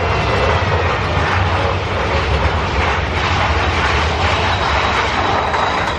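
Big Thunder Mountain Railroad roller-coaster train running along its track through a cave, a steady loud rumble.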